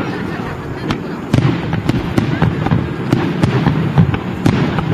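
Aerial firework shells bursting in quick succession: sharp booms and cracks, several a second, over a continuous low rumble of distant reports, with the loudest bang about four seconds in.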